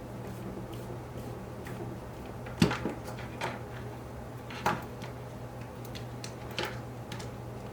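Sharp clicks and taps of small plastic kit parts and metal hinge pins being handled and fitted: one louder knock about two and a half seconds in, then a few lighter ones, over a steady low hum.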